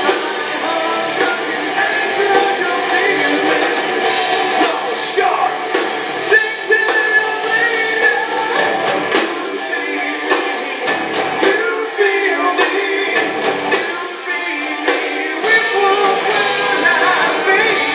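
Rock band playing live through a club PA: electric guitars and drums, heard from the crowd with a thin low end.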